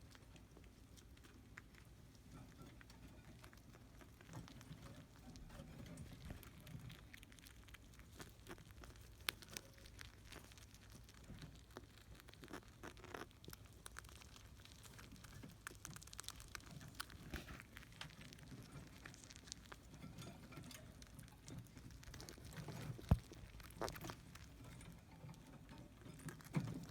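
Small pets eating fast from a pile of food: faint, scattered nibbling, scrabbling and pattering clicks, with one louder knock about three quarters of the way through.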